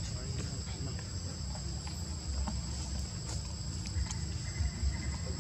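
Steady drone of insects, crickets or cicadas, holding two even high tones without a break, over a low rumble.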